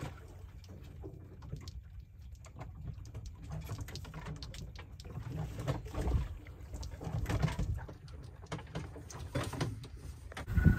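Sailboat at sea: a low rumble of wind on the microphone and water moving along the hull, with scattered knocks and splashes that grow louder about halfway through and a heavier thump near the end.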